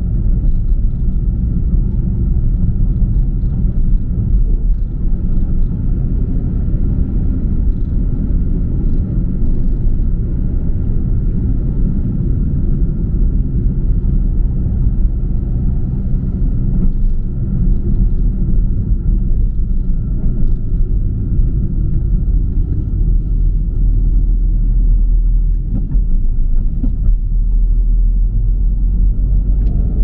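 Car driving on a paved country road, heard from inside the cabin: a steady low rumble of engine and tyre noise, with a faint steady high whine above it.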